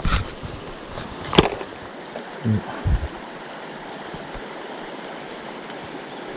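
Mountain stream running steadily, a constant rush of water. A sharp click comes about a second and a half in, and a few low thumps follow shortly after.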